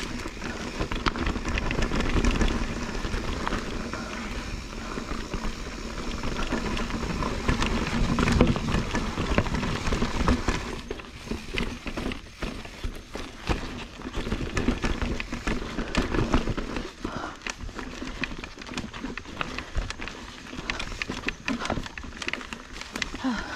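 Mountain bike riding over rocky dirt singletrack: tyres rolling on dirt and stone with frequent knocks and rattles from the bike. It is a heavier, steadier rumble for about the first ten seconds, then choppier, with many sharp knocks.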